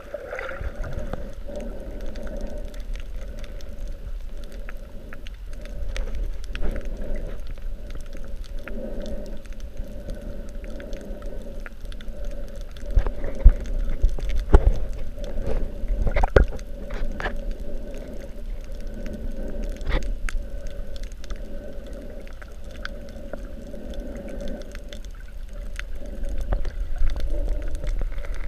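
Underwater sound picked up by a GoPro Hero 3 in its waterproof housing while snorkelling: a muffled steady drone and water swishing, with scattered clicks. A few sharp knocks come about halfway through.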